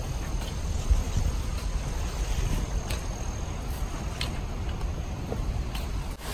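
Outdoor field ambience: a steady low rumble and a thin, steady high insect drone, with a few faint scrapes of a steel hoe blade drawn through loose, dry soil.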